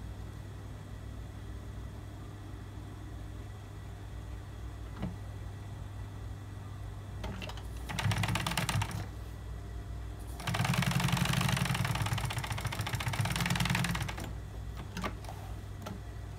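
Industrial lockstitch sewing machine stitching along a handbag panel's edge, running in two bursts of rapid, even stitching: a short one about eight seconds in, then a longer run of about three and a half seconds from about ten and a half seconds. A steady low hum runs underneath.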